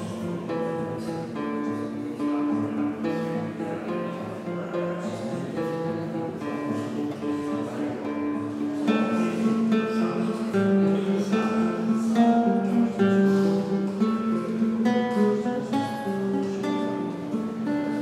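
Classical nylon-string guitar played solo fingerstyle, a continuous run of plucked notes and chords that grows louder about halfway through.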